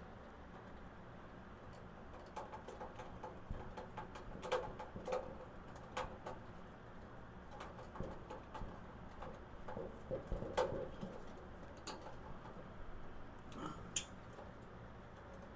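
Scattered light clicks, taps and small squeaks of hand tools and hardware as the steel tool cart's handle is fastened on, with a few sharper knocks about four and a half, six, and ten and a half seconds in.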